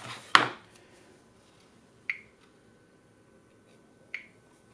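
A sharp knock from the cardboard phone box being handled, then two short high beeps about two seconds apart, the touchscreen tap sounds of an LG V10 smartphone as its setup screens are tapped.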